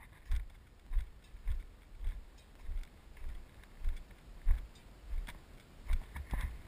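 Footsteps of a hiker walking on sand and gravel, about two steps a second, each a low thump with a little crunch.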